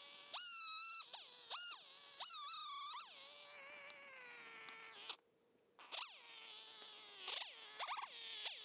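Two-stroke chainsaw buzzing, revved to high speed in short bursts and dropping back to a lower idle pitch in between, with quick throttle blips near the end. The sound cuts out for about half a second around the middle.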